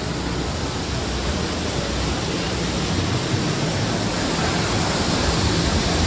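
Steady rushing of water from an artificial stream and waterfall beside the track, over the low rumble of a slow-moving ride train.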